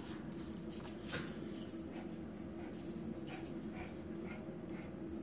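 Faint sounds from a small dog approaching across a carpeted floor, with occasional short soft noises over a steady low hum.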